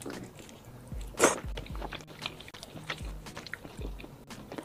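Close-miked eating sounds: a bite into a skewered piece of red-oil-soaked chicken, then wet chewing with lip smacks. The loudest bite comes about a second in.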